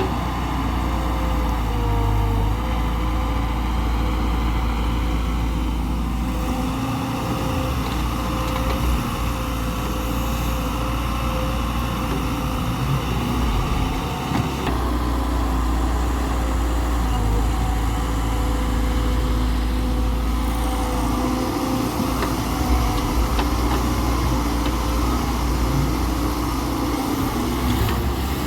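Excavator's diesel engine running steadily while it digs and loads mud, with a steady whine over the low engine note.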